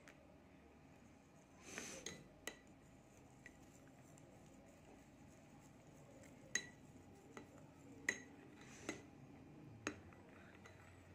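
A metal spoon stirring a thick melted beeswax and oil mixture in a textured glass bowl, clinking sharply against the glass now and then. There is a short scrape and a couple of clinks about two seconds in, then single clinks about a second apart in the second half.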